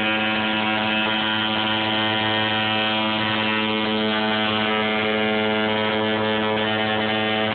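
Coil tattoo machine running with a steady, even buzz as the artist works the needle into skin.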